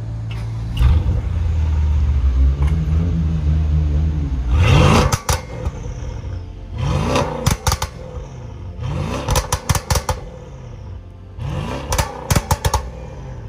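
Mercedes S550's twin-turbo V8 with catless downpipes and resonator delete starting up and settling into a steady idle. It is then revved four times, each rev rising sharply and followed by a string of pops and crackles from the tune's burble map.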